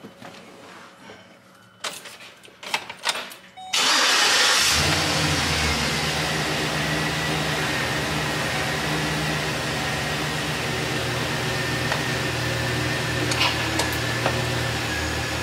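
A few clicks and knocks, then a Chevy Silverado pickup's engine cranks and catches about four seconds in and settles into a steady idle, with a faint high whine above it.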